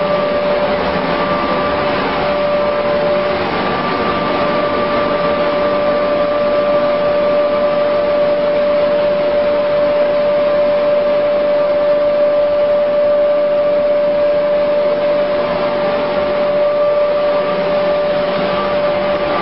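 A sawdust rotary drum dryer line running, with a steady, even machinery noise and a constant high-pitched motor whine over it.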